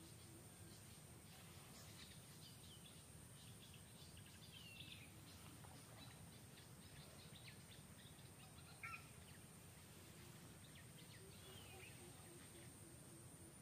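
Quiet outdoor ambience with a steady thin high-pitched tone. Faint, high chirps and sliding calls come through now and then, and one short, sharper squeak comes about nine seconds in.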